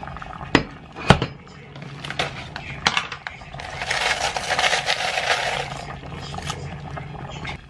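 Cookware clatter at a small black pot of boiling oatmeal porridge: a few sharp knocks and clinks of the pot lid and utensils, the loudest about a second in, then a hissing rush for about a second and a half around the middle.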